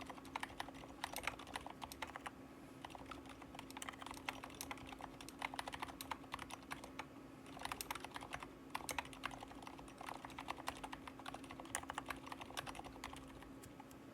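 Steady typing on a Drop CTRL high-profile mechanical keyboard fitted with 65g Aliaz silent switches lubed with Krytox 205: a quick, dense run of quiet, damped keystrokes with a short pause about halfway.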